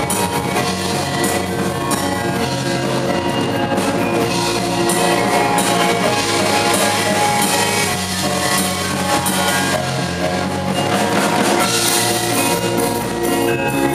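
Live ensemble music blending a gamelan with a rock band: rows of bronze kettle gongs and metallophones struck in busy patterns over drum kit and electric bass.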